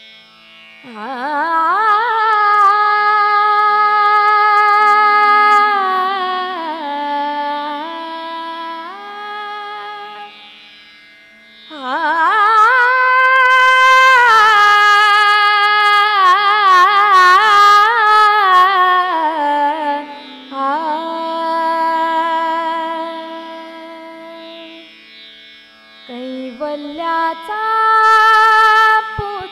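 A woman singing the slow, wordless opening of a Marathi abhang, with long held notes, sliding glides and vibrato, over a steady low drone. A few crisp percussion strokes sound about halfway through.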